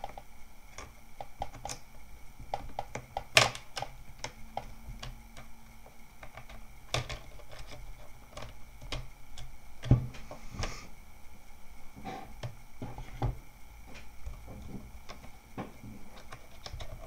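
Plastic screen bezel of a ThinkPad T400s being pried off with a plastic pry tool: irregular sharp clicks and snaps of the plastic, the loudest about three seconds in and again about ten seconds in.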